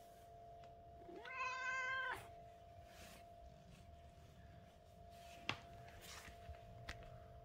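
A blue British Shorthair cat gives a single meow about a second in, lasting about a second, sliding up at the start and then holding its pitch. A few seconds later come a couple of sharp clicks, over a faint steady hum.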